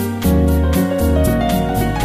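Background music: a keyboard melody over a steady beat and bass.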